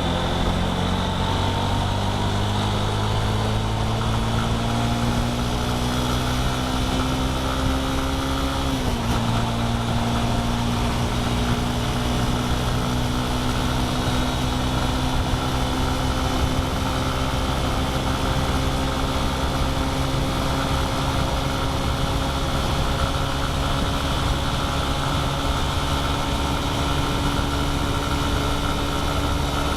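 Vehicle engine pulling steadily under acceleration on a highway, its pitch climbing slowly, with a gear change about nine seconds in where the pitch drops before it climbs again. Steady road and wind noise runs underneath.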